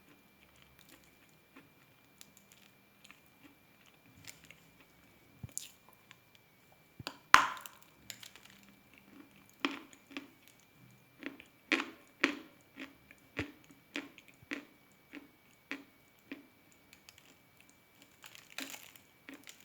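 Khrapovsky chalk being bitten and chewed: dry, crisp crunches, with one loud crunching bite about seven seconds in, then a run of steady chews about twice a second.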